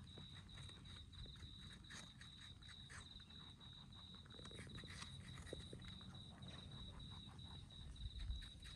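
Two rabbits chewing apple at close range: a quiet run of fine crunching clicks as their teeth work through the fruit. Behind it, an insect trills steadily at a high pitch.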